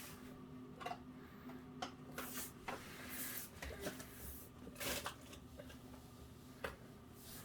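Food containers and packaging being handled while a refrigerator is tidied: irregular clicks, knocks and rustles, a few louder ones, over a faint steady hum.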